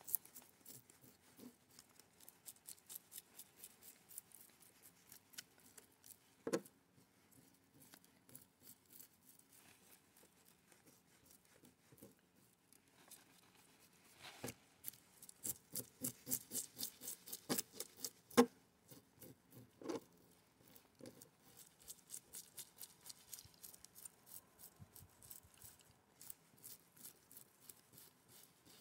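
Knife scaling a gaspereau (alewife): runs of quick, faint scraping strokes as the blade rakes the scales off, with a few sharper clicks among them.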